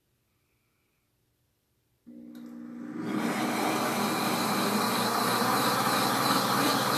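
Near silence, then about two seconds in the Pampered Chef Deluxe Cooking Blender's motor starts up, building over about a second to a steady, loud blending of warm lemon curd and egg. With the top of the lid off, it runs a little noisy.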